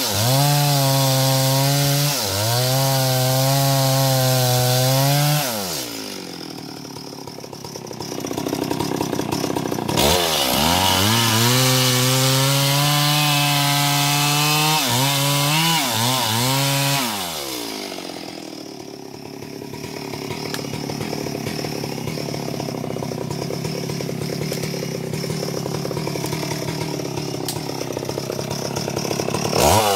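Stihl MS 382 two-stroke chainsaw cutting into a cempaka trunk at high revs, its note sagging under load. It drops back to a low idle about six seconds in, revs up again into the cut, then falls back to idle for the last third.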